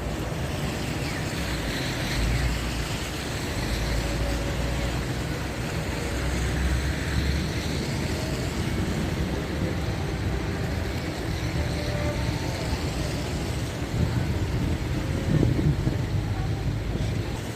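Downtown street noise: traffic passing with a steady low rumble.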